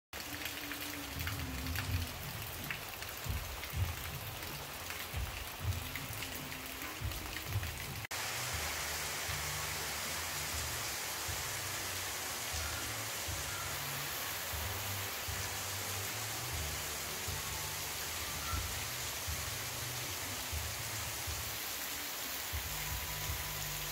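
Heavy rain pouring steadily onto flooded ground and leaves: a dense, even hiss of rain with splashing on standing water. The sound changes abruptly about eight seconds in.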